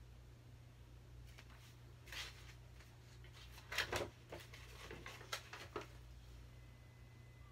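Pages of a paperback picture book being opened and turned: a handful of short papery rustles and flicks, the loudest about four seconds in. A low steady hum runs underneath.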